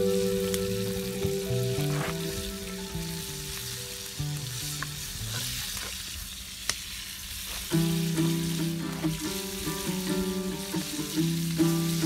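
Diced meat sizzling as it fries in a pan over a campfire, with a spoon stirring it and a few light clicks. Background music with sustained low notes plays over it and is loudest near the start and in the last few seconds.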